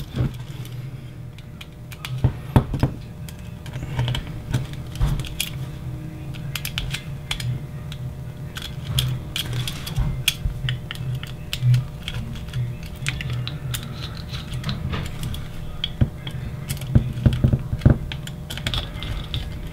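Small screwdriver working the bolts of a metal servo block as they are tightened, with irregular light metal clicks and scrapes from the driver tip and the handled parts. A steady low hum runs underneath.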